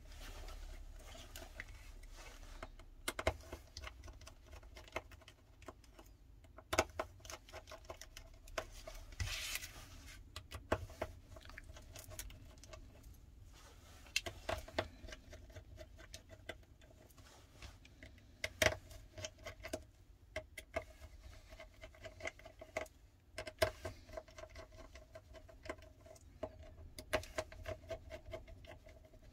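Small scattered clicks and taps of a precision screwdriver and tiny screws as screws are backed out of a Samsung Galaxy S10+ phone's internal plates. A faint steady hum runs underneath.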